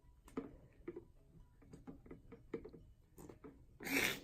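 Slime being pushed into its container: a run of small sticky clicks and squelches, then a louder airy squelch near the end as air is forced out of the slime.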